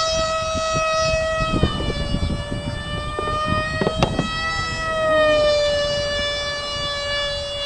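High-pitched whine of an RC flying wing's Mega 4-turn electric motor spinning a 6x4 propeller in flight. The pitch settles after a drop as the plane passes, grows louder about five seconds in, then slowly falls again. Under it is a low rumble of wind on the microphone.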